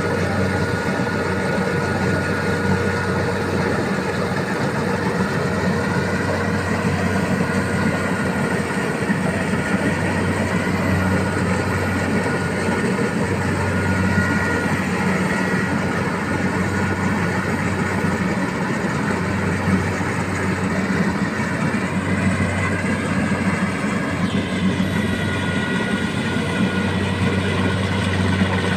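Rice combine harvester running steadily at working speed, its engine and machinery making a continuous even drone that shifts slightly in pitch near the end.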